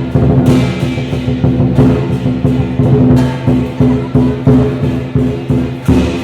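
Chinese dragon dance percussion played loud: a rapid, continuous drum beat, with crashes reaching high up every second or so over a sustained ringing tone.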